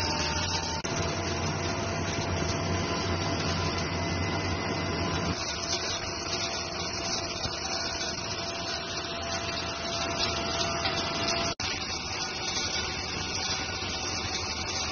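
CNC machine tools cutting metal under flowing coolant: a steady whirring hiss with a few faint whining tones. The sound changes abruptly about a second in and again about five seconds in, and cuts out for an instant near twelve seconds.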